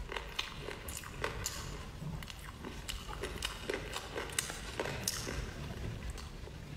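Close-up chewing and mouth sounds of someone eating rice and braised pork belly, with many short, sharp wet clicks and smacks.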